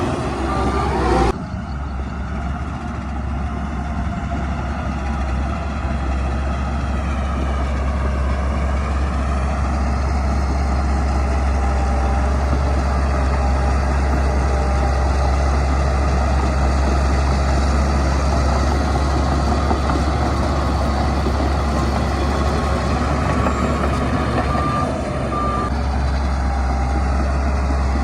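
Heavy diesel engine of earthmoving machinery running steadily with a deep rumble. Pairs of short reversing-alarm beeps sound at the start and again a few seconds before the end.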